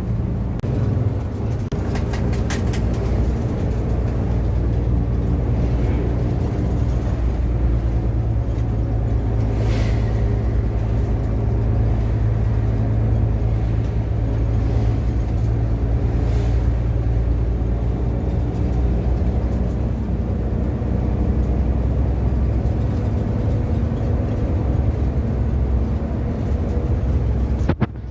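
A car driving steadily along a road: a constant low engine hum and road rumble, with a few faint brief swishes, and a short break in the sound near the end.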